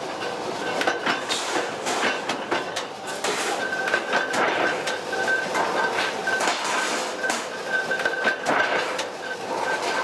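Sheet-metal work: repeated metal clanks and rattles as steel panels are handled and bent, over a thin high whine that comes and goes from about a third of the way in.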